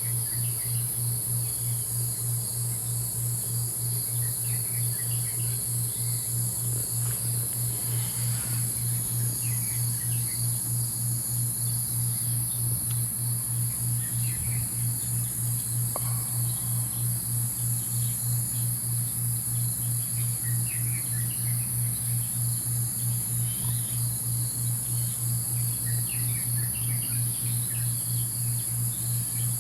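Dawn nature ambience: a steady high-pitched insect chorus with scattered short bird chirps, over a low, evenly pulsing hum.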